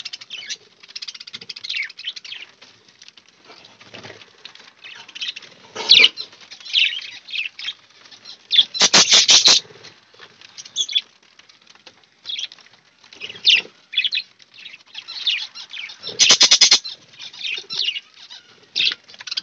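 Caged budgerigars chirping in short high calls, with two loud bursts of rapid wing flapping, about nine and sixteen seconds in.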